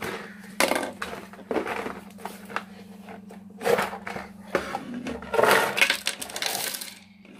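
Cardboard toy box being opened and handled, with crinkling and rustling of the flaps, then a pile of small plastic Pop-Up Pirate swords sliding out of the box and clattering onto the tabletop near the end.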